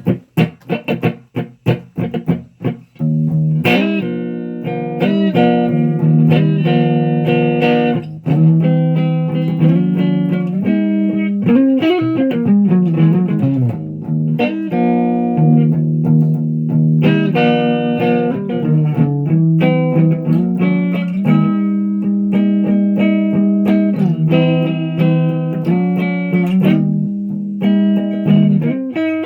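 Electric guitar played solo: short, choppy notes for the first few seconds, then sustained single notes and chords, with a downward slide in pitch about halfway through.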